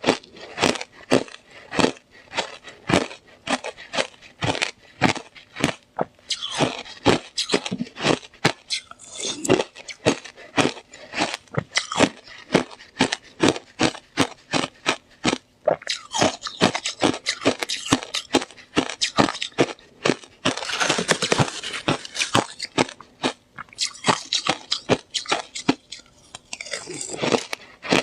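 Slushy ice being bitten and chewed close to the microphone: a steady run of crunches, two or three a second, with a few denser, crackly stretches.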